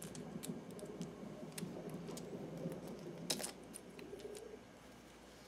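Small stones and crystals clicking and clacking as a hand picks them up and moves them about, a quick cluster of louder clacks about three seconds in, over a faint low hum that drops away near the end.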